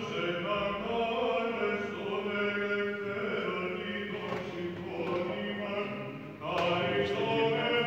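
Monks chanting Byzantine chant at Vespers: male voices singing slow, sustained melodic lines over a steady held low note. The chant briefly drops about six seconds in, then a louder phrase begins.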